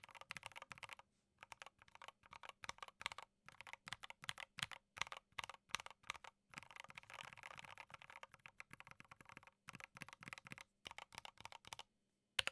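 Typing on a Drop Alt mechanical keyboard with Gateron Ink Black linear switches and OSA keycaps: a quick patter of keystrokes broken by a few short pauses, with a denser flurry of keys partway through. One sharp, louder key click lands at the very end.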